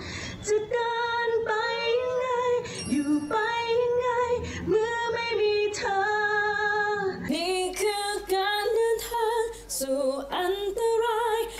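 A woman singing solo with long held, wavering notes, heard as a self-made home video recording; about seven seconds in it cuts to a second woman's recording of the same kind of singing.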